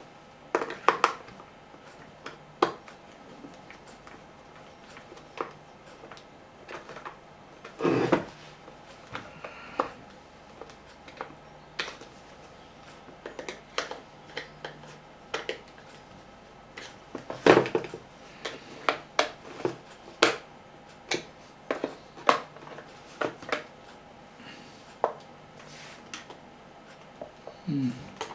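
Irregular small clicks and taps of a screwdriver and hands working on a small portable radio's plastic case, with a couple of louder knocks, as the cover screws are tightened and the case is checked for fit.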